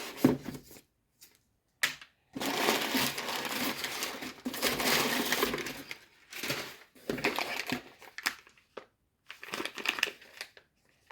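A parcel being opened by hand: packaging rustled, torn and crinkled in a run of bursts, with a long stretch of continuous crinkling from about two to six seconds in.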